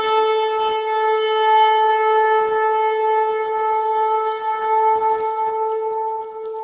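Shofar (ram's horn) blown in one long held note at a steady pitch, fading out at the very end.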